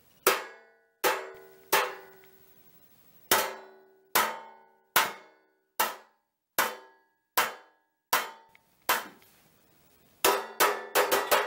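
A metal spoon banging on a metal baking pan like a drum, each hit ringing out briefly: about eleven evenly spaced strikes a little under a second apart, then a quick flurry of about six near the end.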